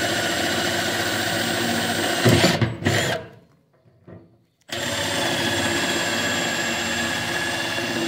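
Cordless drill running steadily as a small bit pre-drills a pilot hole through the steel side of a Yoder YS640 pellet grill. A little over two seconds in it surges louder, then stops for about a second and a half before running again.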